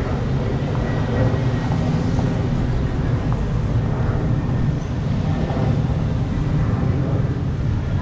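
Street ambience: a steady low rumble of passing car traffic.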